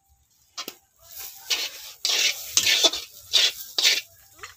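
Steel spatula stirring and scraping thick mung dal paste around a kadai in about six quick strokes, starting about a second in; the dal filling is being cooked down dry.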